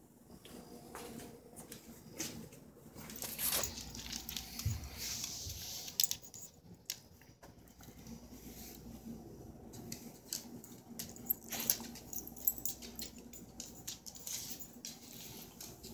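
Clear plastic exercise ball with a guinea pig inside rolling over a tile floor: the animal's feet patter on the plastic, with irregular light clicks and knocks as the ball moves.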